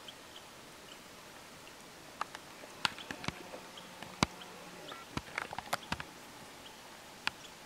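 A scattering of small sharp clicks and knocks over a faint steady hiss, most of them in the middle seconds and the loudest about four seconds in, with a few faint high peeps.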